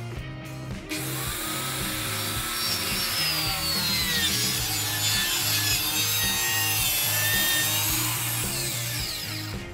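Power saw ripping a 2x4 lengthwise, cutting through the wood from about a second in until just before the end, its whine sliding in pitch as it cuts. Background music plays underneath.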